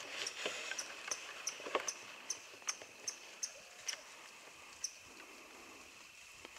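A rapid series of short, high chirps from a small animal, about two and a half a second, that stops about five seconds in. Under them runs a steady high-pitched hum.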